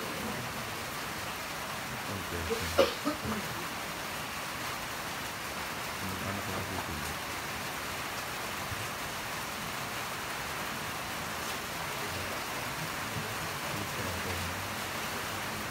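Steady hiss of background noise, with one sharp click about three seconds in followed by a few fainter clicks.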